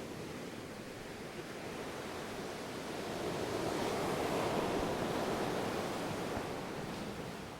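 Ocean surf washing ashore as a steady rush of water, one wave swelling louder about three seconds in and falling away near the end.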